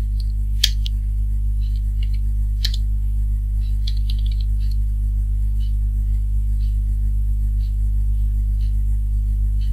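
Steady low electrical hum, with sharp clicks about half a second and nearly three seconds in and lighter taps of computer keyboard keys scattered between about 1.5 and 6 seconds.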